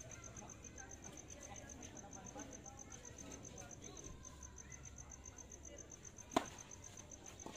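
Crickets chirping steadily in a fast, even pulse. About six seconds in comes one sharp pop of a tennis racket striking the ball on a serve.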